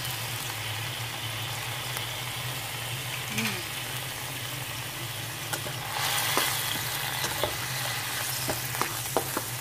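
Soy sauce and shallot greens sizzling and bubbling in a wok as they are stir-fried. The sizzle grows louder about six seconds in, and a utensil then clicks against the pan several times near the end.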